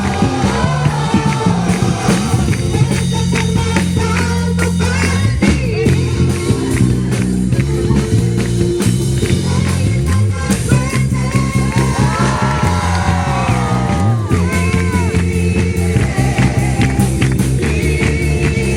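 A worship song, a voice singing over a band with a steady beat.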